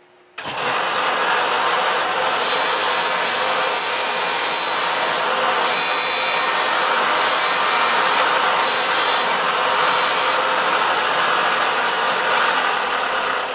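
Belt sander starting up about half a second in and running, with the end of a steel piano wire held against the belt to grind it to a tapered point. The grinding comes and goes in several stretches between about two and ten seconds in, as the wire is pressed on and lifted off.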